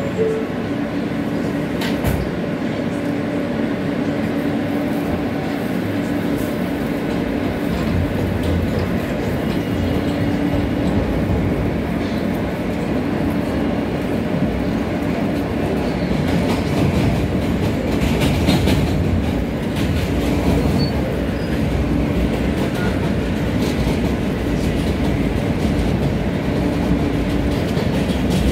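New York City subway train on an elevated line, heard from inside the car as it pulls away from a station and runs along the track. A steady motor tone gives way to heavier running noise, with the wheels clicking over rail joints partway through.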